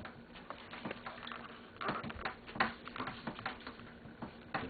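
Slime being handled and kneaded by hand, making irregular small clicks, taps and squishes.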